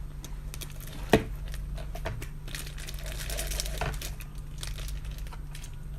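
Plastic takeaway bag crinkling and rustling as it is untied and handled, with one sharp click about a second in.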